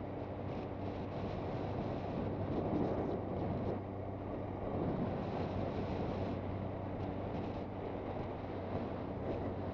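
Suzuki GSX650F's inline-four engine running at a steady speed under way, its even hum mixed with heavy wind rush on the microphone.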